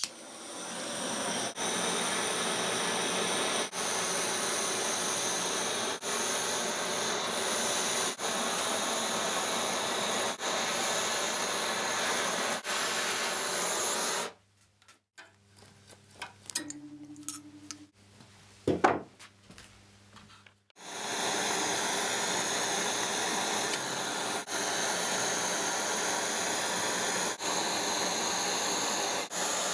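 Handheld gas blowtorch burning with a steady hiss as it heats a thin spring-steel rod red-hot for bending. The hiss stops for several seconds about halfway, leaving a few small knocks and one sharp knock, then starts again.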